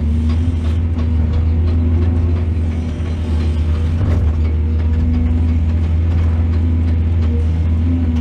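Excavator's diesel engine running steadily, with scattered light metallic clicks over it.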